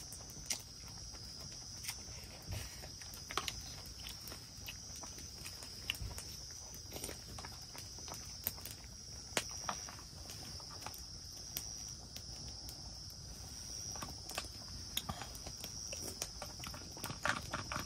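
Crickets or other insects chirring steadily in a high-pitched, slightly pulsing chorus, with scattered small clicks and knocks throughout.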